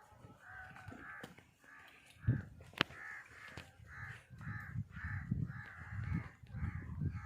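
Crows cawing over and over, about two caws a second, with a single sharp click near the middle.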